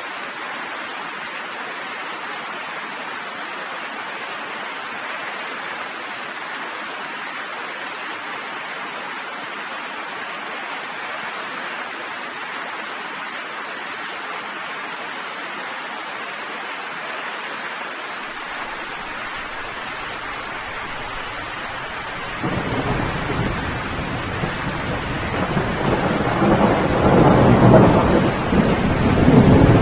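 Steady rain falling. About 22 seconds in, a low rumble of thunder starts and builds, growing louder toward the end.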